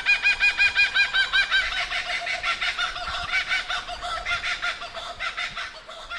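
A bird calling in a rapid run of repeated notes, about seven or eight a second, loudest at first and fading toward the end.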